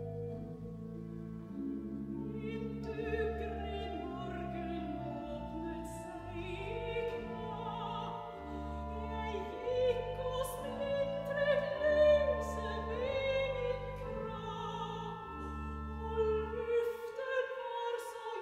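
Soprano singing a Norwegian art song with pipe organ accompaniment. The organ holds slow sustained chords, the voice enters about two seconds in with vibrato, and the organ's low bass notes drop out near the end.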